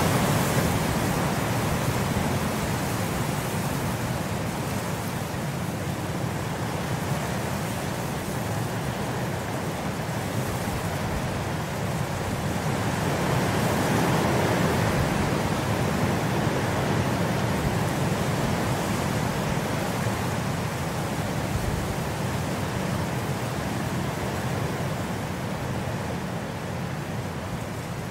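Steady rain, a continuous even hiss that swells gently around the middle and eases a little toward the end.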